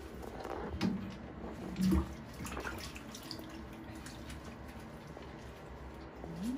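Light, irregular splashing and dripping of bath water as a baby is washed by hand in a small plastic infant bathtub. A brief low voice sound comes about two seconds in.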